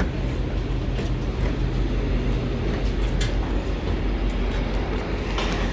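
Steady low rumble of a GO Transit double-decker commuter train standing at the platform, with a few sharp clicks and knocks.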